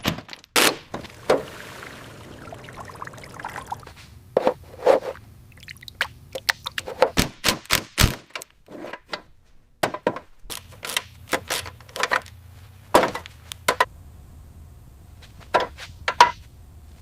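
Irregular sharp knocks, clunks and scrapes of heavy metal engine parts being worked loose and handled, some in quick clusters, over a faint steady low hum.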